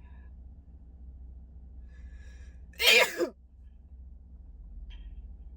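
A woman sneezes once, sharply, about three seconds in: a sneeze set off by a nasal swab pushed up her nose during a Covid test.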